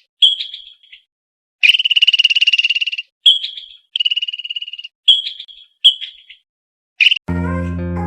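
Squirrel chattering: rapid, high-pitched pulsed trills, one long one of about a second and a half followed by five short bursts. Guitar music comes in near the end.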